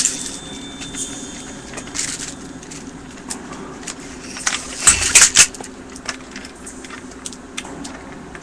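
Handling noise as a sling is unwrapped from a plastic airsoft Thompson: scattered clicks and rattles of the sling's metal hardware and the gun's body, with a louder burst of clatter about five seconds in, over a steady low hum.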